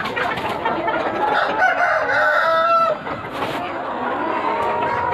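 A flock of country chickens clucking, with a rooster crowing once for about a second and a half; the crow stops abruptly a little before the middle.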